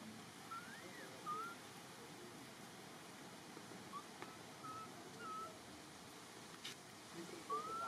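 Infant long-tailed macaque giving a series of short, thin, whistle-like coo calls. The first rises and falls, and the last rises near the end.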